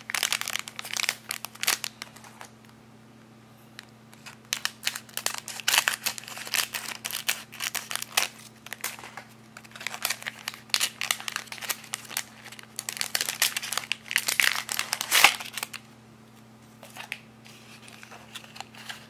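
Plastic blind bag being torn open and crinkled by hand, in irregular bursts of crackling rustle with short pauses, softer near the end.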